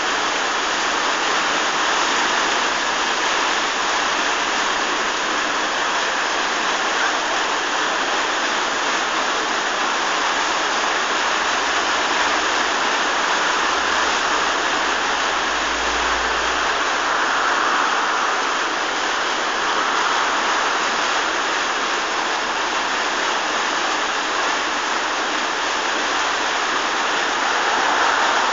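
Water pouring and churning into the bottom of a deep brick canal lock chamber, a steady unbroken rush. The lock is being filled through its open paddles.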